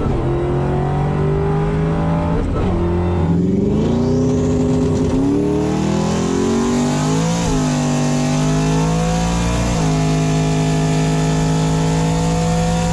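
Supercharged V8 of a 2003 Ford Mustang Mach 1 pulling under acceleration, with a high supercharger whine climbing alongside the engine note. The engine pitch drops sharply about three times as the 6R80 automatic shifts up.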